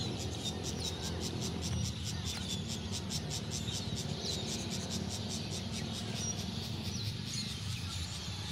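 Outdoor ambience picked up by a phone's microphone while walking: an insect chirping in rapid, even pulses, with a few bird chirps over a low steady rumble. The pulses fade out after about six seconds.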